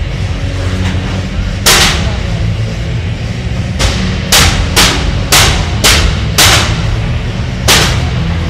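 Heavyweight combat robots striking each other: a series of loud metal bangs, one about two seconds in, six in quick succession between about four and six and a half seconds, and one more near eight seconds, over a steady low rumble.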